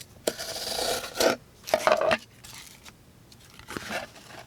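Tip of a CH Knife Man folding knife's thin S35VN blade slicing a line through a piece of material: a long scraping draw through the first second, then several shorter cutting strokes.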